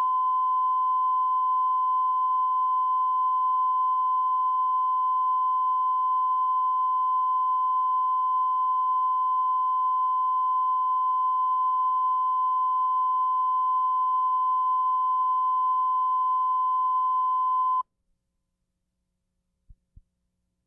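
Videotape line-up test tone: one steady, unwavering beep recorded with the colour bars, cutting off suddenly about eighteen seconds in. Two faint clicks follow near the end.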